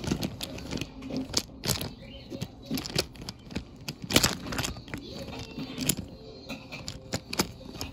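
Wooden toy subway cars rolled by hand along wooden toy track: an irregular run of clicks and clacks from the wheels and track, with a sharper knock about four seconds in as two cars' couplers meet.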